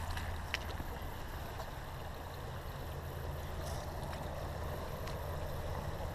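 Jeep Wrangler Unlimited JK engine running low and steady as the Jeep creeps slowly forward over rough ground toward the creek.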